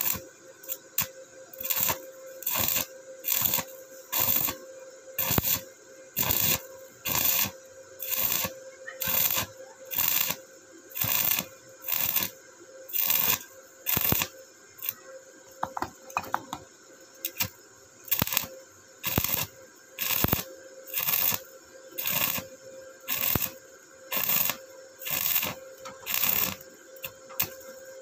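Stick-welding arc from an Ingco MMA-1302 130 A inverter welder burning a 2 mm electrode on a steel plate, with the current turned up. The arc crackles and sizzles in even pulses about twice a second, over a faint steady tone.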